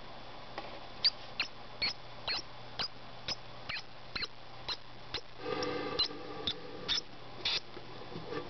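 Pinky mouse squeaking: short, high squeaks that fall in pitch, about two a second, with one longer, lower cry near the middle.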